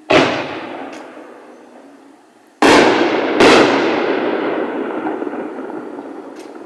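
Koto Collection consumer artillery shells bursting overhead: three loud bangs, one at the start and two close together a little past halfway, each followed by a long echoing rumble that dies away slowly.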